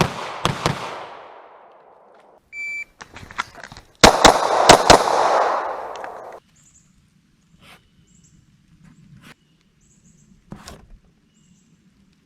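9 mm pistol shots with echo trailing after each string. A shot-timer beeps about two and a half seconds in, and a quick string of about four shots follows roughly a second and a half later. After that there are only a few faint clicks.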